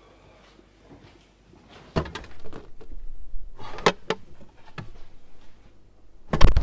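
Fridge door pulled open with a sudden rush about two seconds in. Sharp clicks of glass bottles and jars knocking on the shelves follow as things are moved about inside. A loud thump just before the end fits the door being shut.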